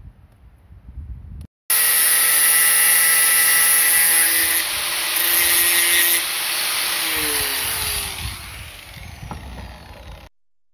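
Hand-held angle grinder running at full speed with a loud, steady whine and hiss. Near the end it is released, and its whine falls in pitch and fades as the disc spins down.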